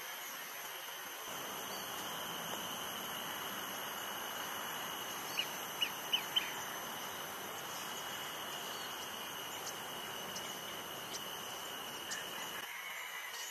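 Blue-tailed bee-eater calling: four short, sharp chirps in quick succession about halfway through, over a steady background hiss and high whine.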